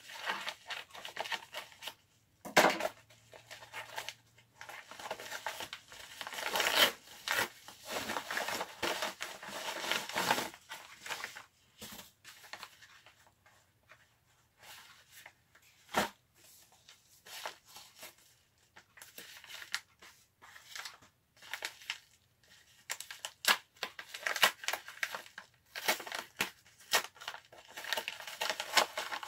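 A padded paper mailer is cut open with scissors, and the packets inside are handled. The result is irregular bouts of crinkling, rustling and tearing of paper and plastic packaging, with sharp snaps and short quiet pauses.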